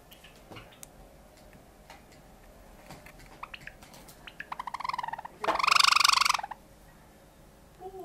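Java sparrow singing: a few soft clicking notes, then a quickening run of clicks about three seconds in that builds into a loud buzzing trill lasting about a second, a little past halfway.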